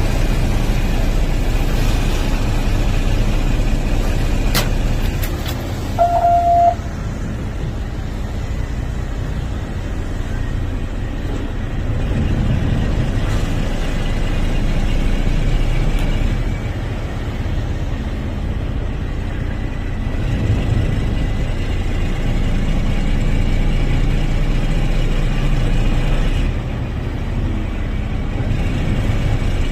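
Boat engine running steadily with the low rumble of water and wind around it. About six seconds in there is one short horn toot.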